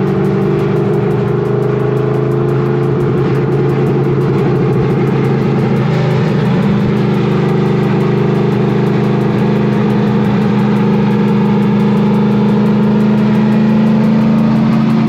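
Fox-body Mustang's 408 cubic-inch stroker Windsor V8 running at a steady cruise. Its exhaust drone is loud and holds an even pitch throughout.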